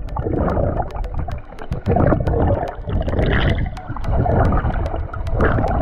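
Muffled rushing and gurgling of water heard underwater from a mask-mounted camera, swelling and fading about once a second, with scattered small sharp clicks.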